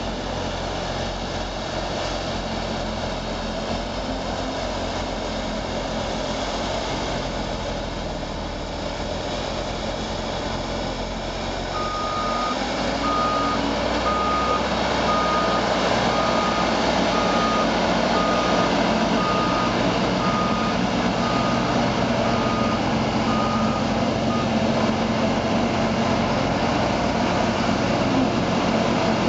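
Vohl VL-350 loader-mounted snow blower, powered by its own 350 hp John Deere engine, running steadily as it blows snow, getting louder about twelve seconds in. From then on for about twelve seconds a back-up alarm beeps at an even pace, a little over one beep a second, as the loader reverses.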